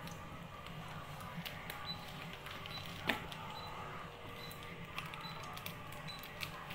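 Small scissors snipping and cutting into the packing tape of a taped parcel: a scattering of short clicks and snips, the sharpest about three seconds in and several more close together near the end.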